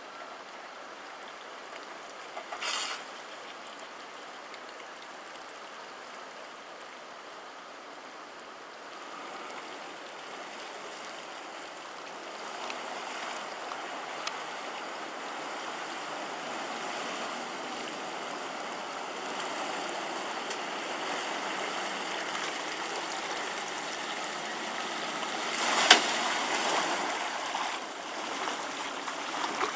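Water splashing and churning around a Land Rover Discovery 2 as it wades through a shallow creek crossing, growing louder as the vehicle nears. A short sharp noise comes about three seconds in and a louder one near the end.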